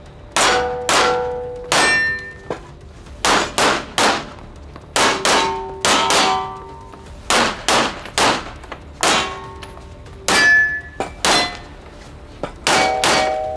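Rapid pistol fire during a timed run at steel targets: about twenty shots, many in quick pairs, each followed by the brief metallic ring of a steel plate being hit.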